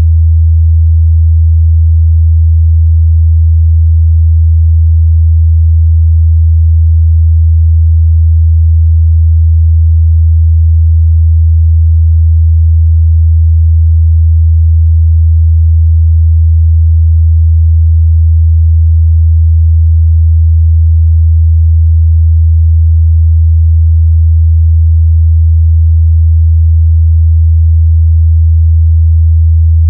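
Continuous 81 Hz sine-wave test tone: a steady, loud, deep bass hum at a single pitch.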